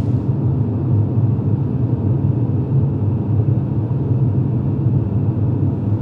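Steady low rumble of a moving car, heard from inside the cabin.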